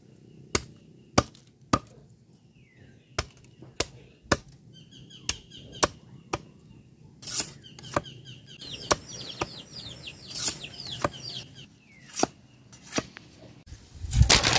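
Machete chopping into bamboo on a wooden block, splitting and trimming it into slats: a series of sharp chops, about one every half second at first, then more spread out.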